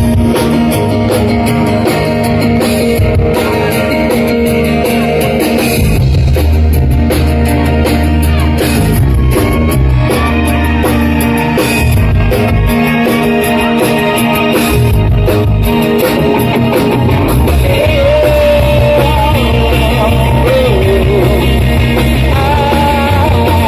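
Live pop-rock band playing loudly, with electric guitar, bass and drum kit, and a male singer's voice coming in over the band in the second half.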